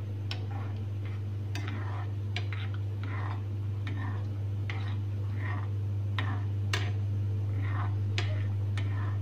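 A metal spoon stirring flowers in a small stainless-steel saucepan of simmering water, clinking lightly against the pan a little more than once a second, over a steady low hum.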